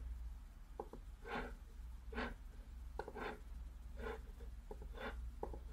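Faint computer mouse clicks, about seven short separate clicks spaced roughly a second apart, over a steady low hum.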